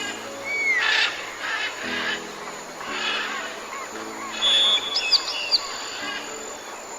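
Birds calling over background music: a curving whistled call near the start and a quick run of short high whistles just past the middle.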